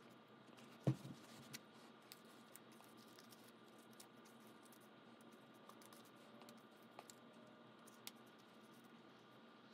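Hands placing and sliding paper photo prints on a notebook page: a few soft taps and paper scrapes, with one sharp thump about a second in.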